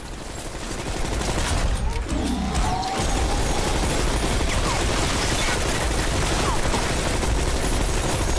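A film soundtrack's heavy multi-barrel machine gun firing continuously, a dense unbroken rattle of shots that starts about three seconds in and holds steady.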